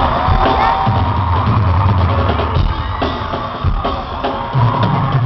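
Loud live concert music with a drum kit, over a crowd of fans screaming and whooping.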